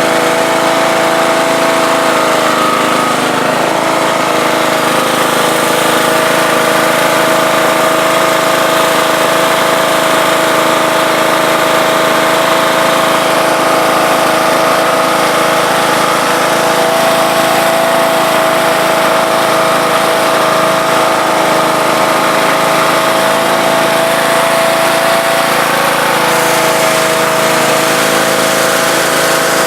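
Husqvarna riding lawn tractor's engine running steadily at a fairly constant speed, its pitch shifting slightly about three seconds in and again near the end.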